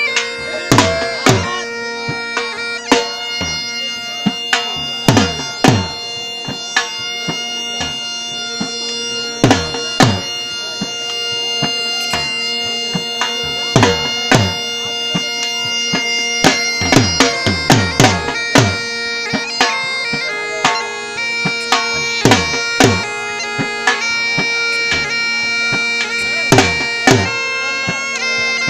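Live Saraiki jhumar folk music: a reed wind instrument plays a melody over a steady drone, with a dhol struck in irregular accents. Some of the drum strokes drop in pitch.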